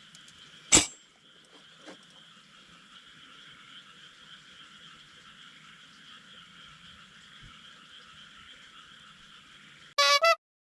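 A steady chorus of frogs calling. A single sharp metallic clink about a second in, and a brief pitched tone near the end just before the sound cuts out.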